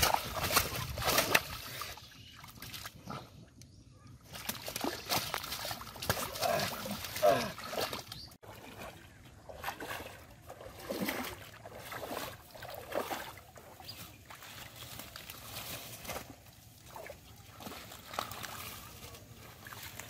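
Muddy water splashing and sloshing in uneven bursts as hands dig and grab catfish in a shallow mud pool, then the splashing steps of someone wading through shallow river water.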